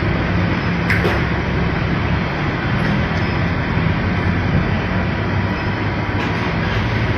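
Steady roadside traffic noise with a low engine hum from passing vehicles, and a brief click about a second in.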